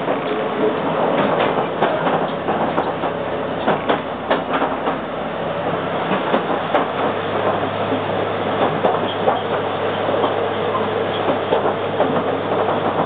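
Running noise inside the passenger car of a former Kintetsu 16000 series electric train: a steady low hum under a continuous rumble, with frequent irregular clicks and knocks from the wheels on the track.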